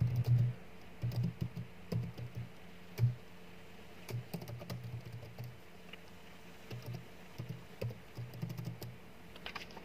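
Typing on a computer keyboard: short runs of keystrokes with brief pauses between them.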